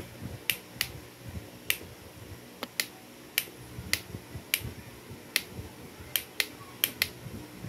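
A series of about a dozen sharp, dry clicks at irregular intervals of roughly half a second to a second.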